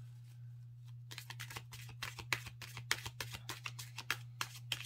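Oracle cards being shuffled by hand: a quick run of light card-edge clicks and slaps that starts about a second in, over a steady low electrical hum.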